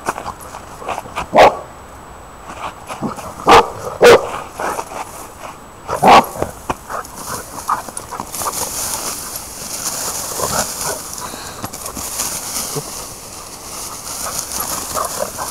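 Dog barking four times in the first six seconds, loud and short, two of the barks in quick succession. Then a steady high rustle of wheat stalks as the dog pushes through the standing crop.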